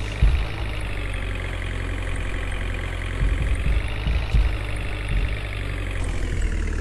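Heavy construction-vehicle engine running steadily at idle, a low continuous drone with a few brief low bumps.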